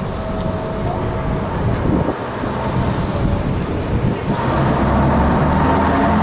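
Double-decker bus's diesel engine running close by, getting louder about four seconds in as the bus moves up near the microphone, with a steady whine added.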